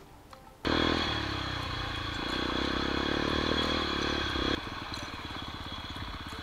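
125 cc enduro motorcycle engine running loud while the bike is ridden over dirt and gravel, setting in abruptly about half a second in. Near the end of the fourth second it drops to a lower, steady, even putter, like an idle.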